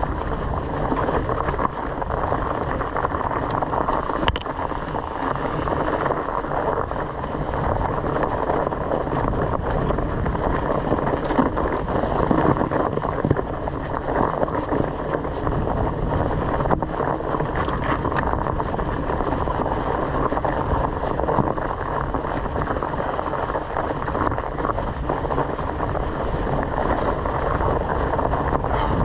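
Mountain bike riding over a leaf-covered dirt trail: a steady rush of wind on the action-camera microphone mixed with the rumble of the tyres on the ground, and a few short knocks from the bike over bumps.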